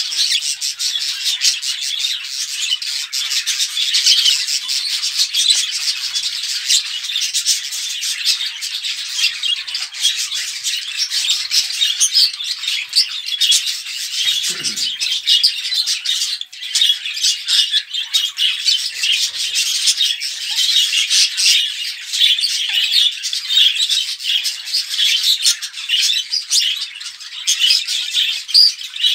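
A flock of budgerigars chattering and warbling without pause, many overlapping chirps and squawks. It is the kind of busy chatter used to bring budgies into breeding condition.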